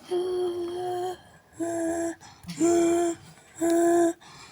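Home fire alarm system sounding after a manual pull station is pulled: the horns give a low, steady tone in on-off pulses, four in a row, each about half a second to a second long.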